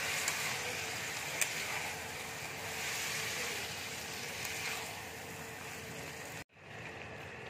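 Vegetables and fish-head masala sizzling in hot oil in a wok as they are stirred and sautéed, with a few light scrapes and clicks of the spatula against the pan. The sizzle cuts out abruptly for a moment near the end, then resumes a little quieter.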